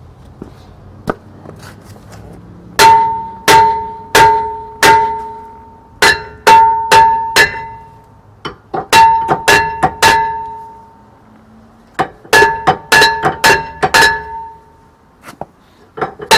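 Hammer blows on a Nissan Elgrand E51's rear brake rotor, struck in quick runs of four to six, each blow leaving the cast-iron disc ringing with a clear pitched tone. The rotor is being knocked loose because the parking-brake shoes inside it were adjusted too tight.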